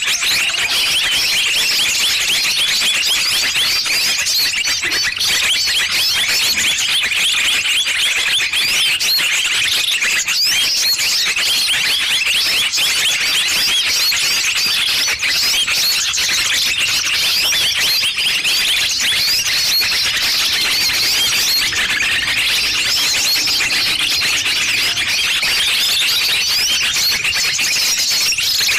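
Small-bird lure call: a dense, unbroken chorus of rapid, high chirps and twitters from many small birds, played loud to draw birds in for trapping.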